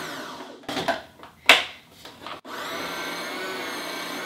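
Electric food processor grating potatoes: its motor whine winds down just after the start, a few knocks and one sharp clunk follow as potatoes and the pusher go into the feed chute, then the motor starts again at about two and a half seconds, rising to a steady whine.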